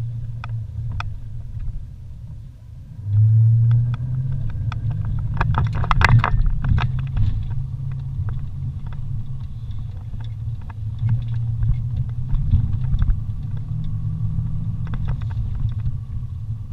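Off-road vehicle's engine running steadily while crawling over a rough dirt trail, pulling harder about three seconds in. Scattered knocks and rattles come from the vehicle jolting over the bumps, with a burst of them about six seconds in.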